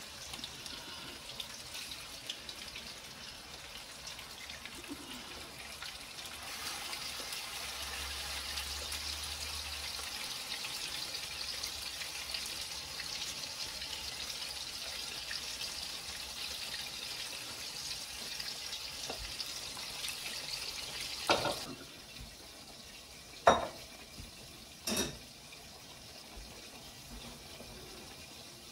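Seasoned ground turkey sizzling as it goes into a hot frying pan: a steady hiss that grows a little louder about seven seconds in and drops away sharply about 21 seconds in. A few sharp knocks follow near the end.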